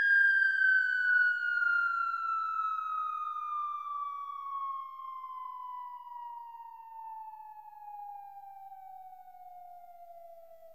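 A single electronic tone gliding slowly and steadily down in pitch, from high to middle, fading as it falls: a falling-pitch sound effect.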